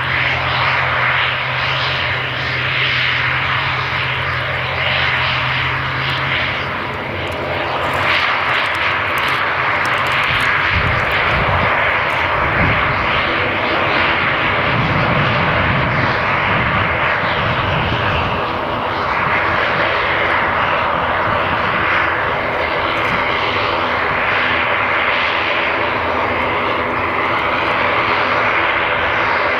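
Twin Pratt & Whitney PW127 turboprop engines of an ATR 72-500 airliner running steadily as the aircraft taxis.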